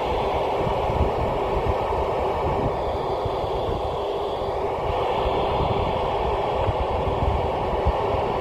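Steady hiss of an Icom IC-2730A FM ham radio with its squelch open, tuned to the SO-50 satellite downlink and carrying no clear signal yet, only noise. Gusting wind buffets the microphone underneath.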